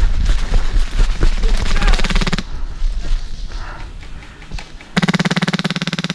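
Airsoft guns firing rapid full-auto bursts. A dense run of fast shots fills the first couple of seconds, then a louder, very even burst comes about a second before the end.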